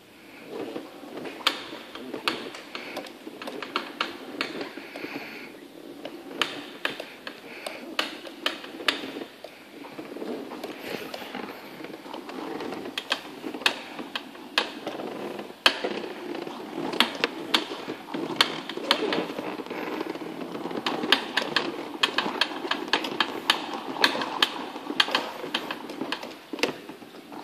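Irregular sharp clicks and ticks over a steady low hum, from the rear wheel of a Suzuki NEX fuel-injected scooter. The clicks come faster and in clusters in the second half. This is an abnormal noise from the rear wheel.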